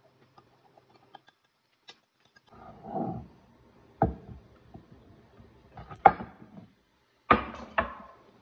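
A glass loaf pan scraping, then knocked four times against a wooden cutting board as a baked loaf is turned out of it.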